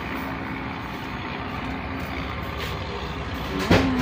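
Ferry boat's engine running with a steady low drone under a constant rushing noise. A single sharp knock comes near the end.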